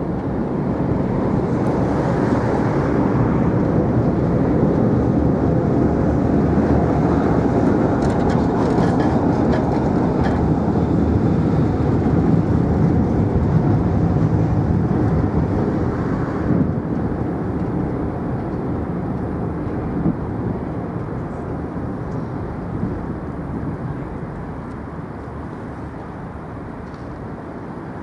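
A vehicle running with a loud, steady rumble that fades gradually over the last ten seconds.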